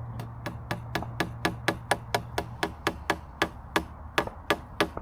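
Pin hammer tapping a staple into a wooden fence rail: quick, evenly spaced strikes, about four a second, steady throughout.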